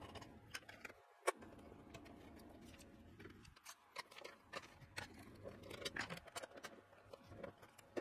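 Faint, scattered light clicks and taps of clear acrylic cover panels being set back onto a Mosaic Palette 3 filament splicer, with one sharper click about a second in.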